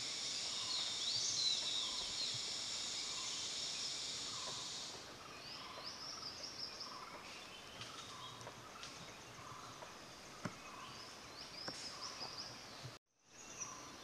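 Forest ambience: a steady high-pitched insect drone that stops about five seconds in, with birds chirping and a bird's short call repeating about once a second throughout. The sound cuts out for a moment near the end.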